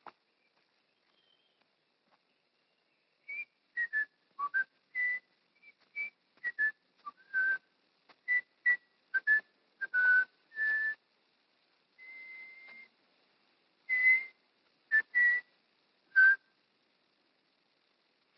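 A person whistling a tune: a string of short, breathy notes that jump between different pitches, with one longer, quieter held note partway through. It starts about three seconds in and stops about two seconds before the end.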